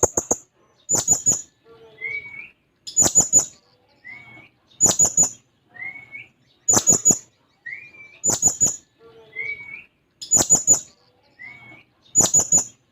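Hanging parrot (serindit) calling over and over: sharp, high-pitched triple-note calls about every two seconds. Between them comes a softer, lower, rising-and-falling squeak.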